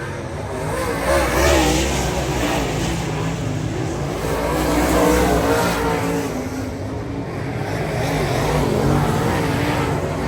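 A motor vehicle's engine running, its pitch wavering up and down over a steady low drone.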